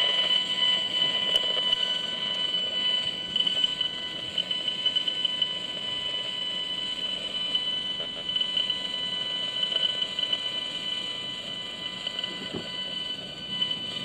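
The audio output of a Gigahertz Solutions HFE-35C RF analyser, a steady high-pitched buzzing tone with crackle underneath as it picks up pulsed microwave signals. The louder the noise, the stronger the radiation: here it reads above 1,000 on the 2,000 range, near smart meters and antennas.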